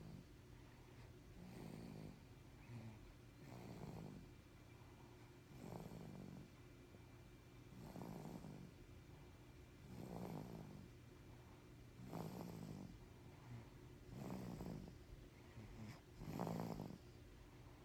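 Rhythmic snoring, one snore roughly every two seconds.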